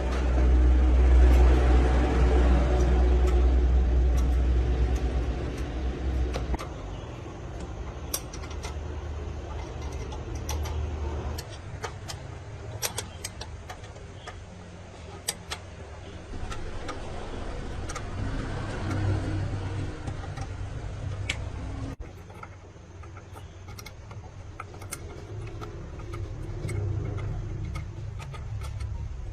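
An engine running with a low rumble, loudest for about the first six seconds and then dropping to a quieter, uneven rumble, with scattered sharp clicks and taps throughout.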